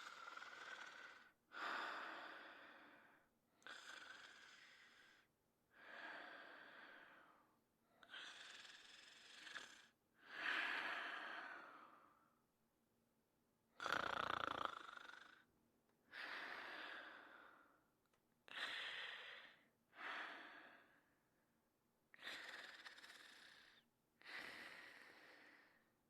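A man snoring: a series of raspy breaths, roughly one every two seconds, with short silences between them. One breath about halfway through has a deeper rumble.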